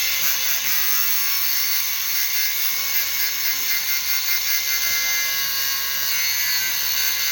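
Small angle grinder cutting concrete, running steadily with a high grinding hiss over a steady motor whine.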